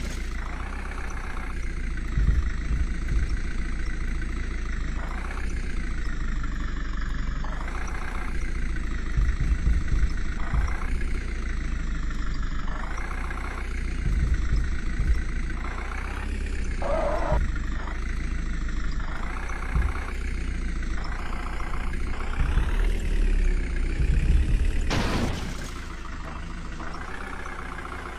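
JCB 3DX backhoe loader's diesel engine running at work, its pitch rising and falling again and again as it revs up and drops back while the hydraulics dig and load. It eases off and runs a little quieter near the end.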